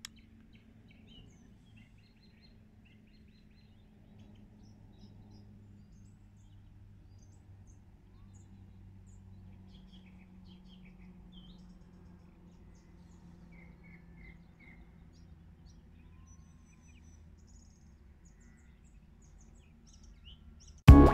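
Faint outdoor evening ambience with scattered short bird chirps over a low steady hum. Loud music cuts in suddenly near the end.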